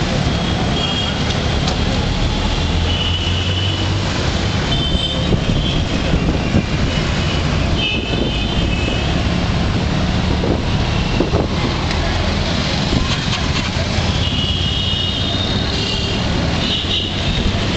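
Dense road traffic heard from a moving auto-rickshaw: the rickshaw's small engine running steadily underneath, with frequent short horn beeps from surrounding vehicles, several in quick clusters.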